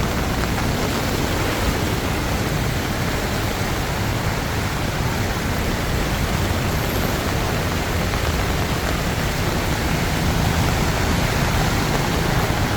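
Heavy monsoon downpour, a steady dense hiss of rain falling on a flooded street.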